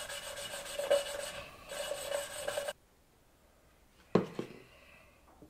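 Valve being hand-lapped into its seat in an IH 434's cast-iron cylinder head with coarse grinding paste, the lapping stick spun back and forth between the palms: a gritty grinding rasp with a ringing note, in two spells, stopping about two and a half seconds in. A single short knock follows about four seconds in.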